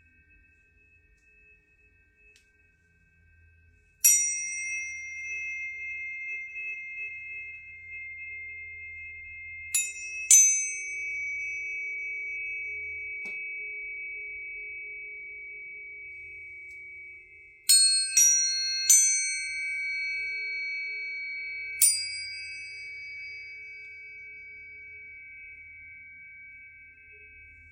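Planetary tuning forks struck one after another, each with a sharp metallic tick followed by a long, clear, high ringing tone that slowly fades. About seven strikes: one, then a pair, then three close together, then one more, with the tones overlapping.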